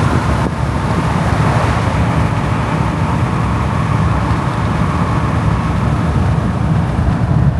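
Steady road and wind noise of a pickup truck driving at highway speed, loud and even throughout.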